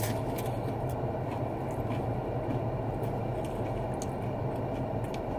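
Steady low drone of an idling car heard inside the cabin, with faint crunches and smacks of a man biting into and chewing a soft fast-food taco.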